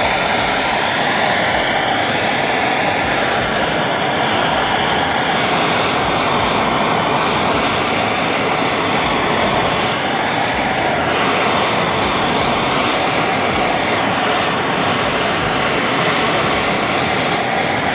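Handheld blow torch burning at full flame: a steady, loud hiss, with a faint wavering whistle in the first few seconds, as the flame is played over cheese on a sandwich.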